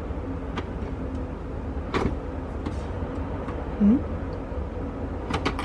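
Capsule espresso machine running, its pump giving a steady low hum, with a few sharp clicks and knocks from handling the machine.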